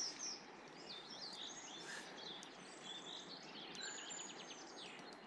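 Songbirds chirping and trilling repeatedly over a steady outdoor hiss, with a few faint ticks.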